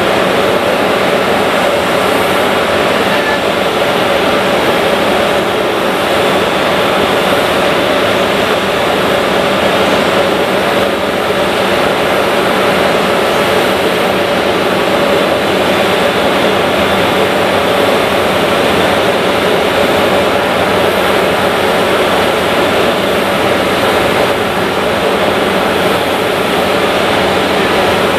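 Jet airliner engines running steadily, a loud even noise with a faint steady hum in it that neither rises nor falls.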